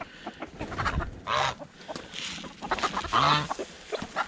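A mixed flock of geese and chickens calling: a few loud goose honks among hens clucking.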